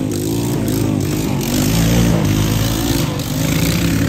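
2003 Chevrolet Tahoe's V8 engine running, its pitch rising and falling, loudest about halfway through.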